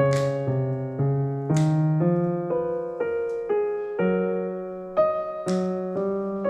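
Calm background piano music, notes and chords changing about twice a second, with three brief sharp clicks on top.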